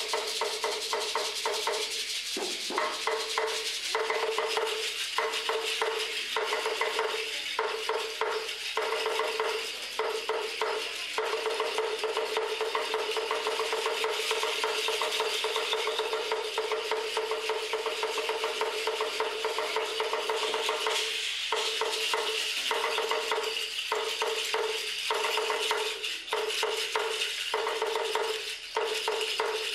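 Hand rattles shaken steadily by Aztec dancers, a dense, continuous rasping shake. A steady mid-pitched tone runs underneath it and drops out briefly many times.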